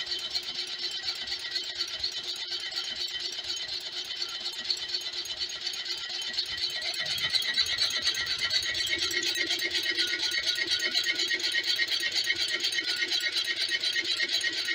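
Homemade horizontal Stirling engine running while it drives a generator, its crank and connecting rod making a fast, even rattle that grows louder about eight seconds in.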